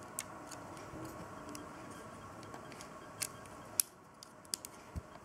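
Plastic LEGO pieces clicking and tapping as they are handled and pressed onto a small brick-built model: a handful of separate sharp clicks, most of them in the second half.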